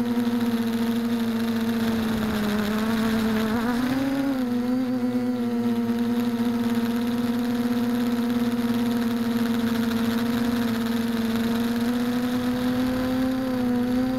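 Mini foam tricopter's electric motors and propellers whining at a steady pitch, heard from on board. The pitch dips and then rises again about two to four seconds in, then holds steady.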